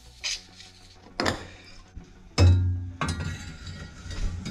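Steel exhaust pipe and hanger parts clinking and knocking as they are handled, a few separate strikes with the loudest about two and a half seconds in, followed by a short low ring.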